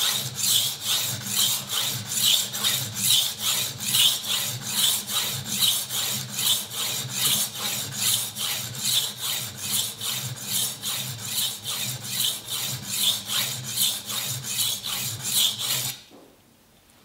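Steel kitchen knife blade stroked back and forth on a diamond sharpening plate: a rhythmic gritty rasp, two to three strokes a second, grinding metal off a very dull edge to lay in a new bevel and raise a burr. The strokes stop about a second before the end.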